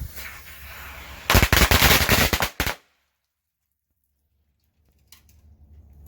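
A string of firecrackers going off in a rapid run of many sharp bangs lasting about a second and a half, which cuts off suddenly.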